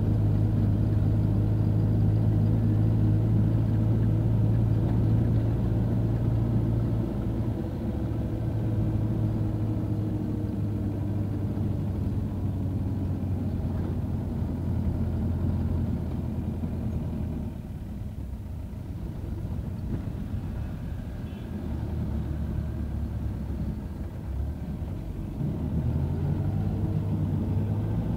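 Bus engine and road noise heard from inside the cabin: a steady low drone that eases off about a quarter of the way in, drops further past halfway, and picks up again near the end.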